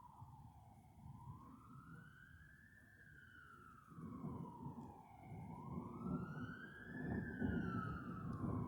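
A siren wailing, its pitch rising and falling in slow sweeps about every four seconds. A low rumbling noise underneath gets louder about halfway through.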